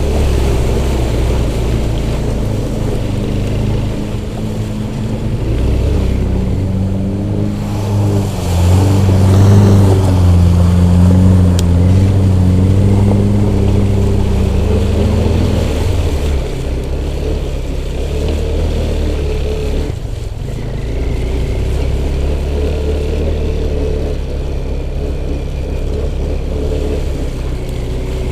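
Off-road vehicle engine running under load, revving harder for several seconds in the middle and then easing back to a lower, steady pull.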